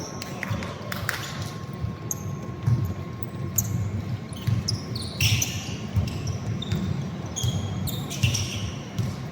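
Basketball game play: a ball bouncing on the court with repeated thuds, and many short, high sneaker squeaks as players move.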